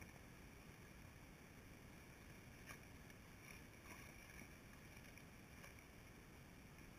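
Near silence: the faint steady rush of the flowing river, with two faint clicks near the middle.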